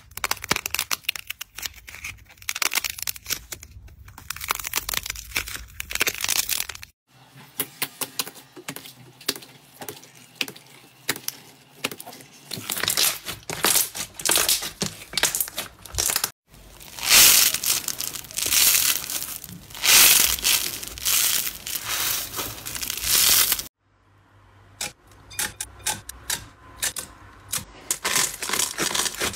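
Slime squeezed, pressed and kneaded by hand, making dense clicking and crackling. The sound stops abruptly three times where one clip cuts to the next.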